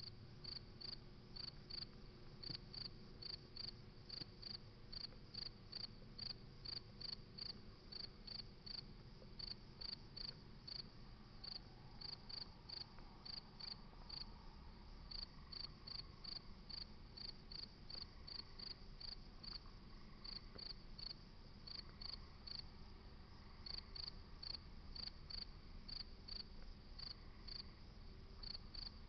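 Crickets chirping steadily, a run of short high chirps at about three a second, over a faint low rumble.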